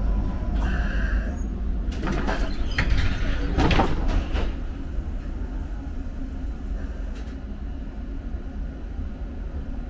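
Public transport vehicle with a steady low rumble, broken by a burst of hissing and clattering from about two to four and a half seconds in, after which it settles quieter.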